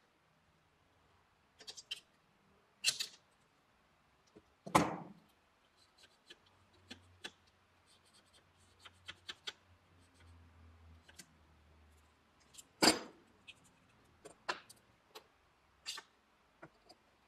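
Workshop handling sounds: scattered clicks, taps and knocks of hand tools and aluminium extrusion frame parts being picked up, set down and adjusted. The two loudest knocks come about five seconds in and again about thirteen seconds in.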